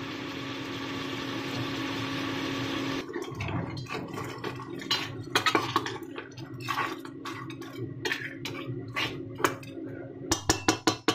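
A steady hiss from the pot of freshly cooked, steaming crablets over the constant hum of an induction cooktop. From about three seconds in, a metal ladle and spatula clink and scrape against the stainless pot and the crab shells as the crabs are stirred, with a quick run of clinks near the end.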